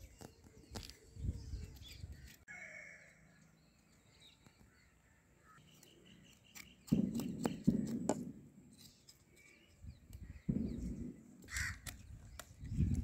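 A knife scraping and clicking over the charred skin of a fire-singed goat head, with crows cawing in the background. The scraping comes in rougher, louder strokes about seven and ten seconds in.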